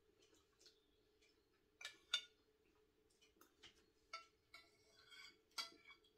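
A metal spoon clinking against ceramic bowls and a plate, several sharp clinks with the loudest a close pair about two seconds in. A faint steady hum runs underneath.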